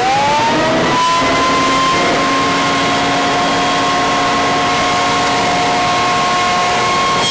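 Electric motor of a stationary woodworking machine whining loudly. The pitch rises in the first second as the load comes off, then holds steady.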